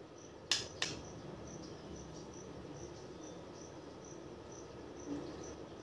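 A cricket chirping steadily and faintly, about four chirps a second. Two sharp clicks come about half a second in.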